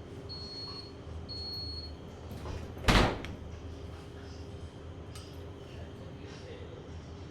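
Short high electronic beeps from a kitchen appliance in the first two seconds, then one loud thud, like a door or cupboard shutting, about three seconds in, over a steady low hum.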